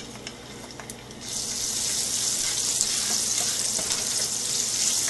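Chopped green chilies sizzling in hot oil in a non-stick wok: a steady, loud sizzle that starts about a second in.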